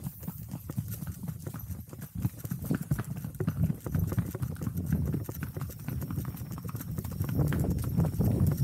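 Hooves of ridden horses clip-clopping on a dirt track: a steady, continuous run of hoof strikes.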